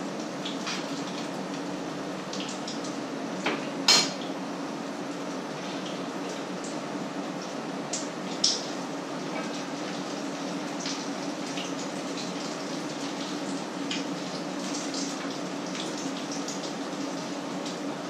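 A spatula clinks and scrapes against a frying pan of frying patties, with scattered light ticks and two louder knocks about four and eight and a half seconds in. A steady low hum runs underneath.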